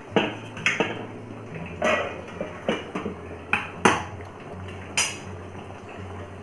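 Steel ladle clinking and knocking against a pan while stirring thick chickpea gravy, with about eight sharp, irregular clinks.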